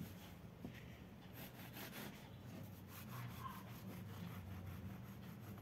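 Faint rustling and light knocks of a crusty bread roll and a serrated bread knife being handled over a wooden table, over a low steady hum.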